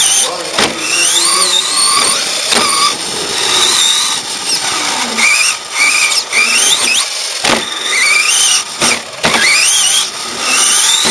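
Radio-controlled car's motor whining, climbing in pitch over and over as the car speeds up down the straights and dropping off between runs, with short knocks now and then.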